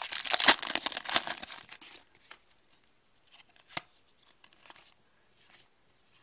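Foil wrapper of a Score hockey card pack being torn open and crinkled for about two seconds. Then the cards are handled faintly, with one sharp tick a little before four seconds in.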